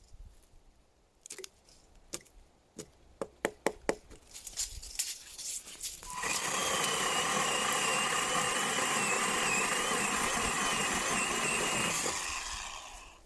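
A series of sharp knocks, then a small power tool's motor running steadily for about six seconds before winding down near the end.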